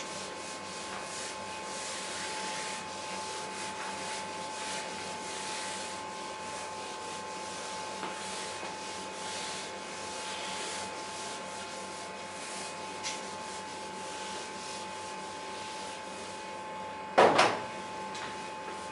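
Whiteboard eraser rubbing across a whiteboard in repeated wiping strokes, wiping off marker writing, over a steady faint electrical hum. A brief loud noise comes near the end.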